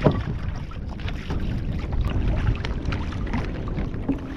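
Wind rumbling on the microphone on a kayak, with small knocks and clicks of the crab pot line being hauled up by hand. There is a sharp thump right at the start.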